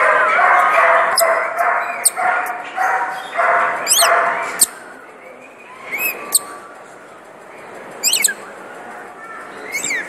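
Repeated bark-like yaps for the first four or five seconds, then quieter, with sharp, high-pitched bird chirps several times among caged parrots and lories.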